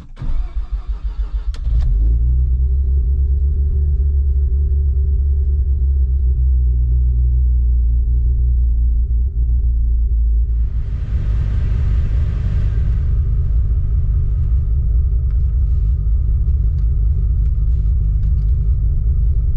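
Mazda RX-7 FD's 13B twin-rotor rotary engine cranking on the starter for about two seconds, catching, then idling steadily. A hiss rises over the idle for a couple of seconds about halfway through.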